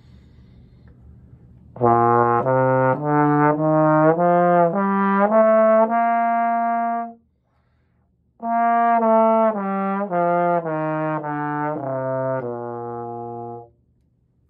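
Tenor trombone with an F attachment playing a one-octave B-flat major scale, up and then back down after a short breath. It is played in smooth tongued legato, each note cleanly separated with no glissando between the slide positions.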